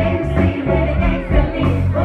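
Live band playing a soul song, with a pulsing bass line, keyboard chords and singing.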